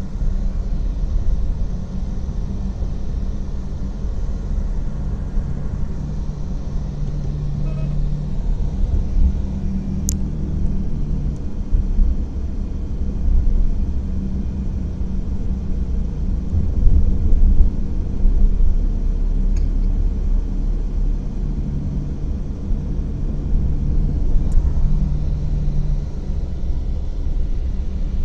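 Steady low rumble of a car driving, heard from inside the cabin: engine and tyre noise on the road, swelling and easing with speed, with a single sharp click about ten seconds in.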